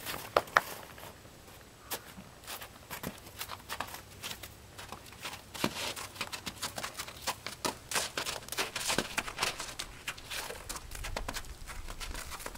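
A horse's hooves crunching through crusted snow and slush at a walk: a run of uneven soft crunches and clicks, with two sharp clicks about half a second in.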